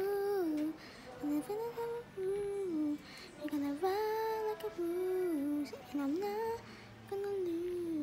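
A woman humming a slow tune in short phrases of held, gliding notes with brief pauses between them.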